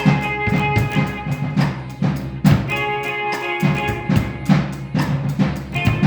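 Electric guitar played by a beginner with choppy, percussive strumming that sounds like a drum kit: sharp hits several times a second with low thuds under them, and held chord notes ringing between.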